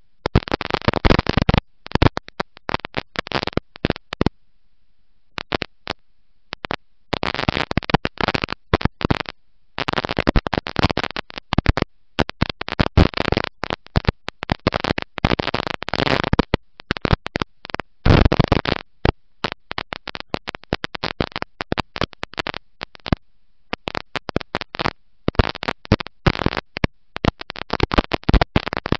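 Dirt-track race car's engine and wind noise, overloaded into a harsh static-like rushing. It cuts in and out in rapid irregular bursts with many brief dropouts to silence.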